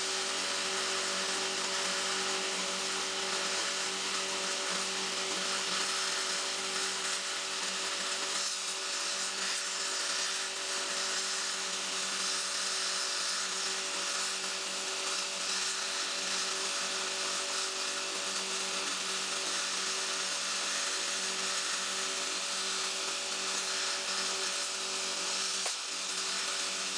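Air-gas melting torch flame hissing steadily on a crucible as it melts silver, with a steady machine hum underneath.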